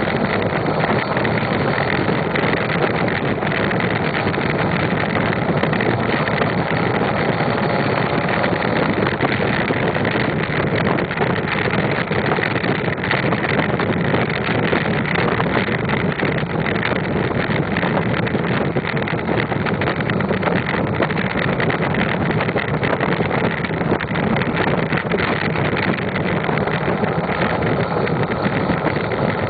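Ford 6.0L Power Stroke V8 turbodiesel running steadily with the truck under way, heard close to its bed-mounted exhaust stack. Some wind noise on the microphone.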